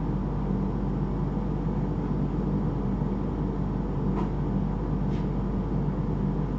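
Steady low hum with two faint ticks about a second apart in the second half.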